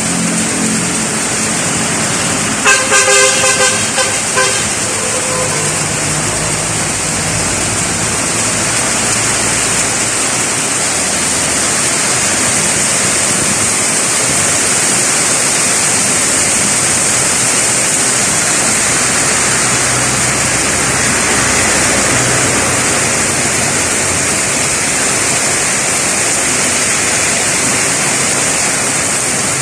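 Heavy rain falling steadily. About three seconds in, a vehicle horn sounds a quick series of short honks.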